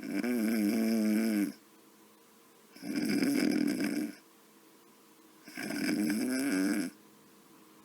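Snoring, sped up: three long snores about 2.7 s apart, each about a second and a half, with a wavering pitch.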